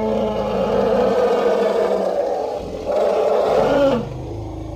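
Elephant giving a long, loud call. It swells again about three seconds in, then tails off and ends near the end.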